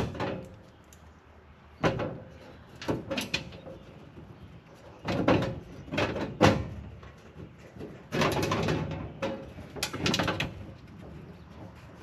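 Metal front cover of an electrical breaker panel being fitted back in place and screwed down: scattered sheet-metal clicks and knocks, with a few short scrapes.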